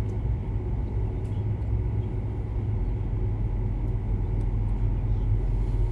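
Steady low rumble with a faint hum under it, with no voice.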